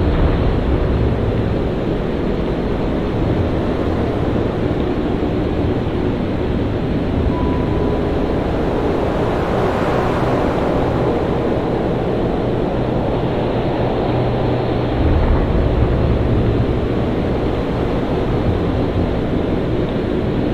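Storm at sea: wind and heavy surf in a continuous deep rush, swelling to a peak around the middle, with a heavier low surge about three quarters of the way through.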